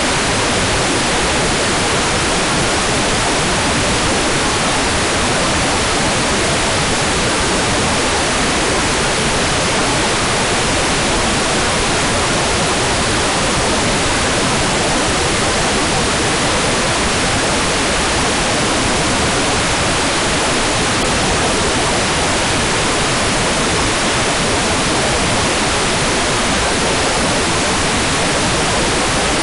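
Hair dryer running continuously: a steady, even rushing hiss that never changes in pitch or level.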